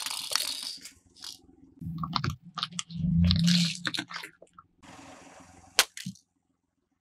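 Car tyre rolling over and crushing plastic toys and drink cans: scattered cracks and crackles, with a longer, louder crunch about three seconds in and a sharp crack near the end.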